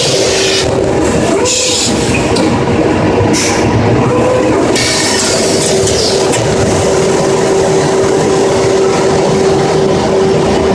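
CNC router cutting a handrail's top profile: a loud, steady machine hum under a cutting hiss that comes and goes through the first half, then runs evenly.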